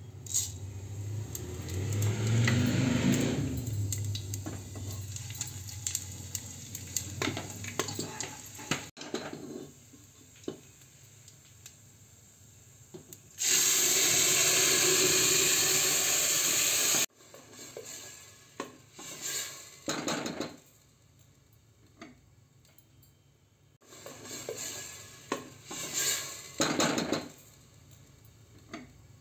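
Food sizzling in hot oil in a pressure cooker: a spoonful of paste crackles briefly as it goes in. About halfway, a puree poured into the hot oil sets off a loud, steady sizzle lasting a few seconds that cuts off suddenly. Then come a few short bouts of a spoon stirring and scraping in the pan.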